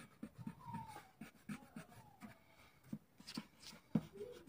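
Eraser rubbing out pencil lines on paper: faint, irregular scratchy strokes.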